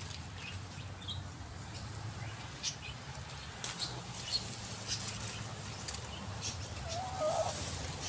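Sparse light rustles and clicks among leafy bean plants over a low steady hum, with one short bird call about seven seconds in.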